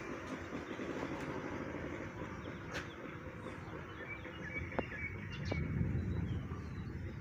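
Outdoor ambience: a steady low rumble with a few short bird chirps in the second half.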